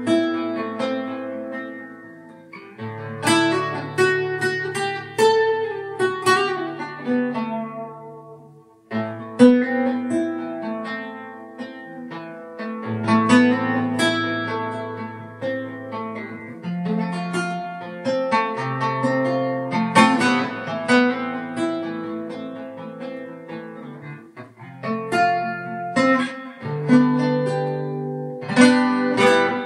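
Solo guitar playing plucked melody notes over held bass notes, with a brief pause just before nine seconds in before the playing resumes.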